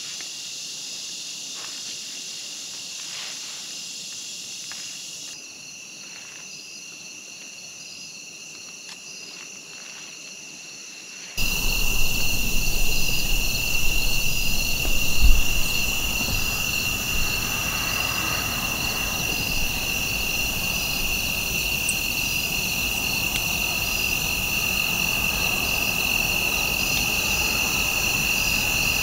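Dusk insect chorus: a steady high-pitched trill with a rhythmic pulsing chirp above it. About eleven seconds in it becomes louder and a low rumble joins it, with a single soft thump a few seconds later.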